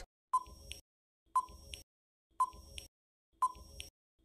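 Countdown timer sound effect: a short beep followed by a fainter tick, repeating about once a second, four times.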